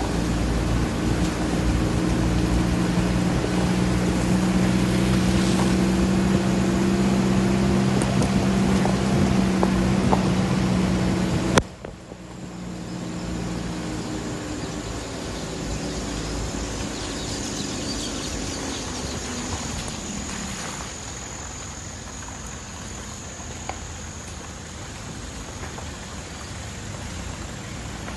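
Steady engine hum and road noise of a moving vehicle, heard from inside it. About twelve seconds in there is a sharp click and the sound drops; after that it runs quieter with a thin high whine.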